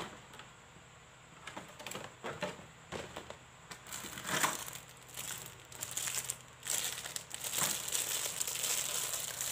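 Clear plastic packaging crinkling and rustling as it is handled and unwrapped: scattered crackles at first, growing denser and more continuous in the last few seconds.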